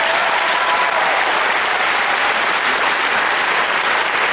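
Large crowd applauding steadily: dense, continuous clapping from a theatre audience and the dancers on stage.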